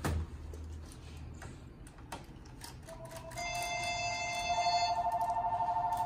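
Light handling clicks. About three seconds in, an electronic alert tone starts: several steady high tones at once, which turn into a fast pulsing beep about a second and a half later.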